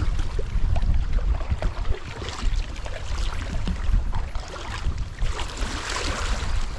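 Wind rumbling on the microphone aboard a kayak, with scattered small knocks and clicks and bursts of water splashing, the splashing strongest near the end.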